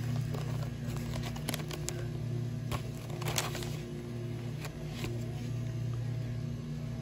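Soft background music over a steady low hum, with a few scattered crinkles and taps from paper seasoning-mix packets being handled. The loudest crinkle comes a little past three seconds in.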